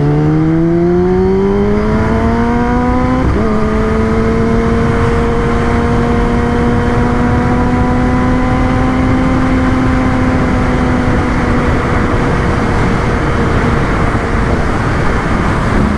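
Kawasaki ZX-10R's inline-four engine accelerating: the note climbs for about three seconds, drops suddenly as the rider shifts up a gear, then holds a steady cruising note that eases off near the end. A rush of wind noise runs under it.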